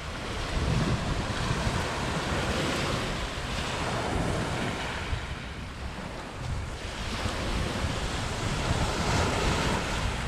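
Waves breaking and washing up the shore, swelling twice, with wind rumbling on the microphone.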